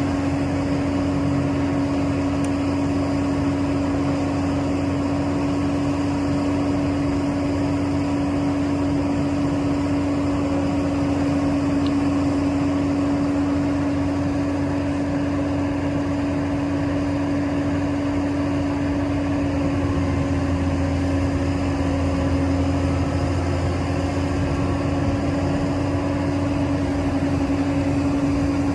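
Heavy construction machine's diesel engine running steadily, with a constant droning hum and no distinct knocks or changes in pace.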